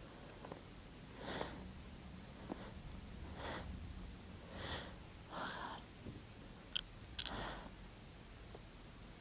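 A person's faint, quick breathy sniffs and catching breaths, about five of them a second or two apart: the hitching breaths of a tickly nose building toward a sneeze.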